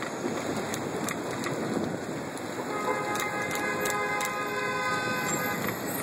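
Street traffic noise with wind on the microphone, and about halfway in a car horn held steadily for nearly three seconds before it cuts off.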